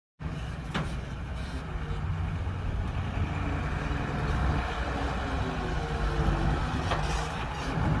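Heavy diesel engine of construction machinery running steadily, with a sharp knock just under a second in and another near the end.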